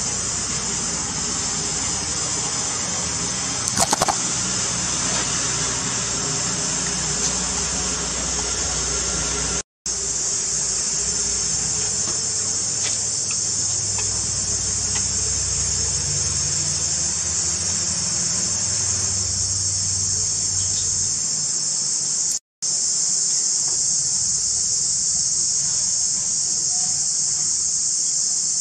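Steady, high-pitched chorus of insects, with a brief squeal from a macaque about four seconds in. The sound cuts out completely twice for a split second.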